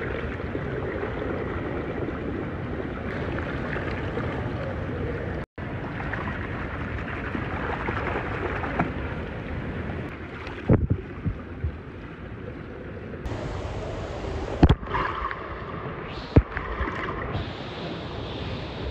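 Swimming-pool water sloshing and lapping close to the microphone as a steady rushing noise, with a few sharp splashes or knocks in the second half.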